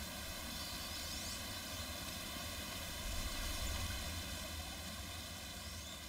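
Steady low rumble, like a distant engine or wind, under a faint even hiss, with no clear call from the duck.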